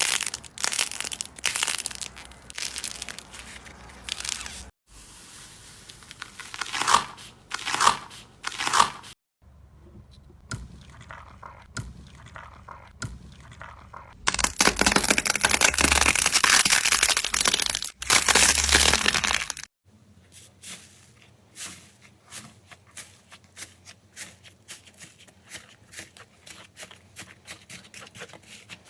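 Slime being squeezed and stretched by hand, making crackling, crunching and popping sounds across several short clips. The loudest is a dense stretch of crackling a little past halfway, and soft, quieter clicks follow near the end.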